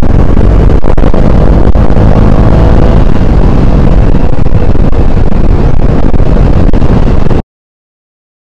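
Wind rushing over the microphone with a KTM Duke motorcycle's engine running at road speed, loud and steady. The sound cuts off abruptly about a second before the end.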